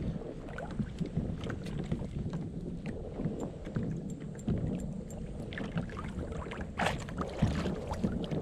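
Water lapping and slapping against a kayak's hull, with scattered small clicks and knocks and one brief, sharper rush of noise about seven seconds in.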